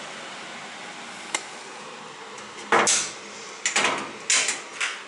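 Sheet-metal door of an electrical control cabinet being swung shut and latched: a single click, then a quick series of metallic bangs and rattles over about two seconds.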